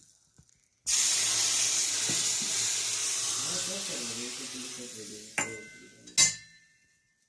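Hot ghee tempering (tadka) poured into the kadha: a sudden loud sizzle starts about a second in and fades away over several seconds. Two sharp clinks follow near the end.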